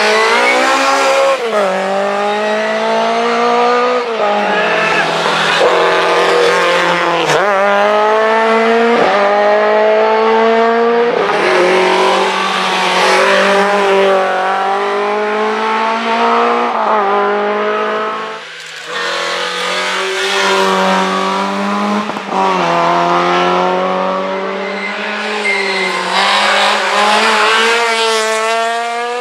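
Rally cars, among them Lada saloons, passing one after another at full throttle, their engines revving hard through the gears. The pitch climbs and drops sharply at each shift, every three to four seconds.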